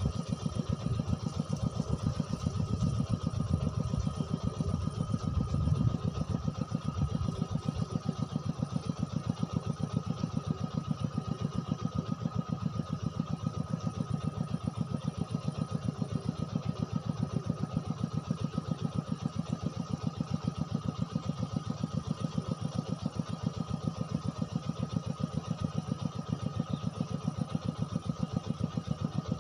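A small engine running steadily, with a rapid, even thudding beat that does not change.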